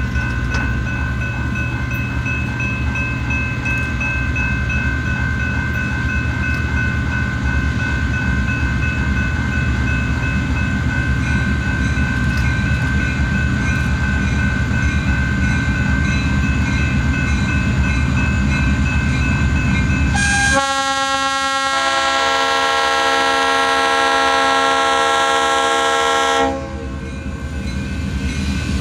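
Approaching diesel freight locomotive running with a steady low rumble, then sounding one long horn blast of about six seconds, starting about two-thirds of the way in; the rumble returns after the horn stops.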